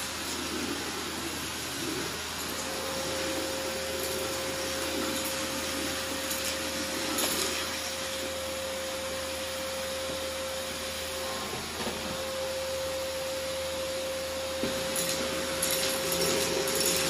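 Red-and-black canister vacuum cleaner running steadily, with a steady tone from about two seconds in that breaks off briefly about two-thirds of the way through. Near the end it gets a little louder, with clicks and rattles.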